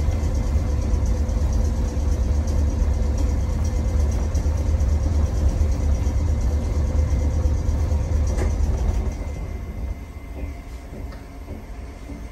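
Stationary tram's onboard machinery running with a steady low hum and faint steady whine, which falls away sharply about nine seconds in, leaving a quieter hum.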